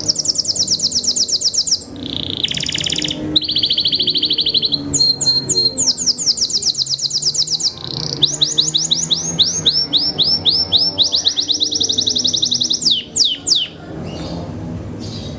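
Belgian Bossu canary singing a long song of fast trills, each phrase a quick run of repeated notes, shifting from one phrase to the next, with a lower trill about two and a half seconds in; the song stops about fourteen seconds in.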